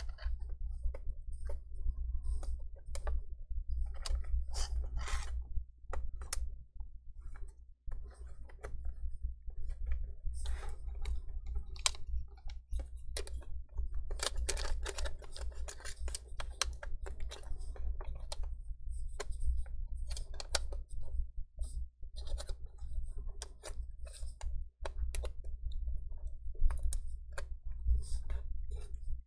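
Fingers handling and pressing a plastic replacement speaker module and its cable into a Lenovo ThinkPad T460s chassis: many small, irregular plastic clicks, taps and scrapes. A steady low hum runs underneath.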